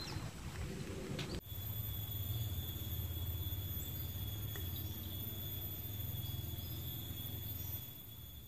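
Forest insects giving a steady, high-pitched continuous trill, over a low rumble that fades near the end.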